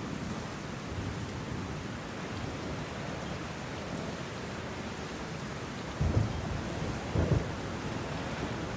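Steady hiss with two short, deep booms, the first about six seconds in and the second just over a second later; the booms are the loudest sounds.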